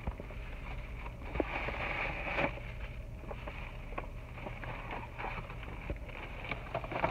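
Tissue paper and a paper gift bag rustling and crinkling as a present is pulled out, with scattered light taps, over a steady low hum.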